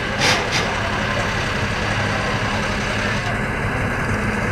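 Steady low engine hum, like machinery idling, with a couple of short rushing noises in the first half second.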